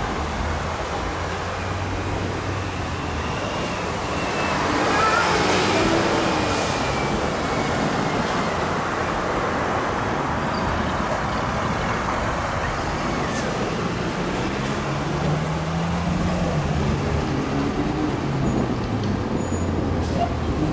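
Street traffic: vehicle engines and tyre noise, steady, swelling a little about four to six seconds in.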